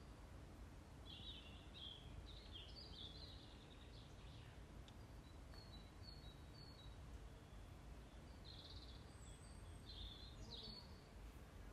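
Near silence with faint bird chirps: short chirping and warbling phrases coming and going over a low background rumble.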